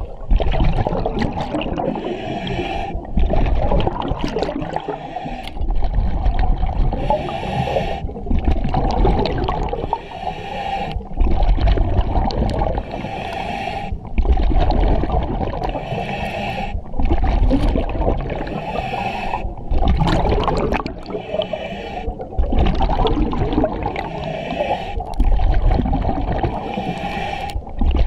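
Scuba diver breathing through a full-face mask's demand regulator: the regulator hisses on each inhale and exhaled bubbles rumble out, about one breath every three seconds.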